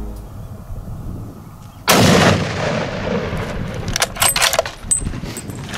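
A single loud hunting-rifle shot about two seconds in, with a long rumbling tail of echo that slowly dies away. A few short sharp clicks follow about two seconds later.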